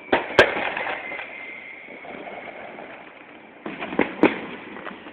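Fireworks going off: two sharp bangs at the start, then crackling, and another quick cluster of bangs about four seconds in.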